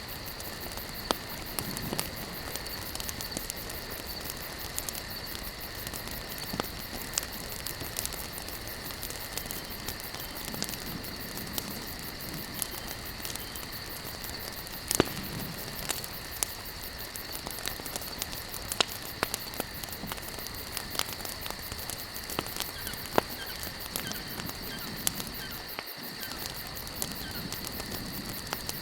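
Wood campfire burning and crackling: irregular sharp pops and snaps over a soft steady hiss, with a steady high-pitched drone behind it.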